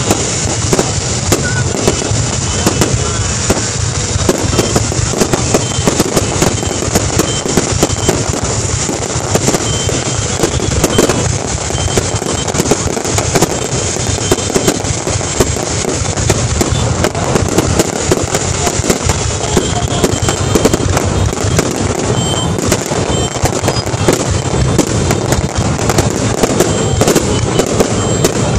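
Fireworks display going off without a break: rapid crackling and popping of bursting aerial shells, with streaks rising behind them.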